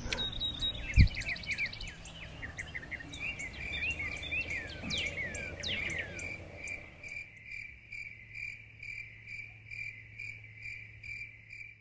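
Crickets chirping in a steady high trill that pulses about twice a second, with birds chirping over it in the first half. A single thump about a second in is the loudest sound.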